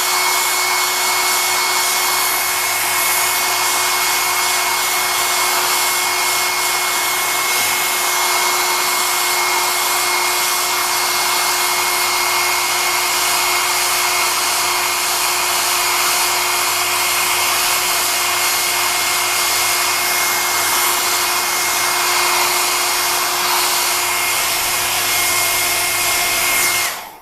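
Small hair dryer running steadily, heating the front of a cracked phone digitizer to loosen it for removal: a constant rush of air with a steady motor whine, switched off just before the end.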